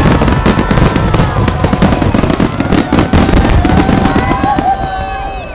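A starmine barrage of aerial firework shells bursting in quick succession, the bangs overlapping into a continuous rumble. The bursts thin out and the sound dies away near the end.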